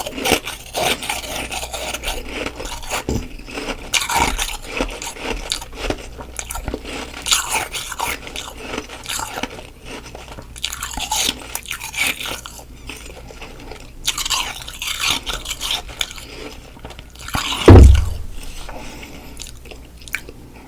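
Close-miked biting and chewing of soft freezer frost: dense, irregular crunching throughout. A single loud thump comes near the end.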